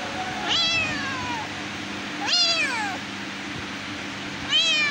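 Domestic cat meowing three times, each meow rising then falling in pitch, the last starting near the end.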